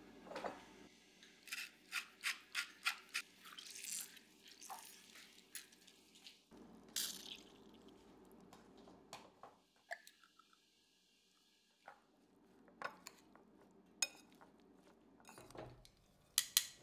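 Kitchen food-prep handling sounds: a string of light clicks, taps and clinks of utensils and dishes, with a few brief swishes, and two sharp clicks near the end.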